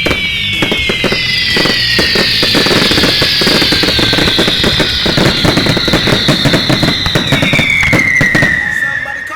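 Fireworks going off in a dense barrage of crackles and pops, with several shrill whistles sliding slowly down in pitch, over music with a steady bass. The sound cuts off sharply near the end.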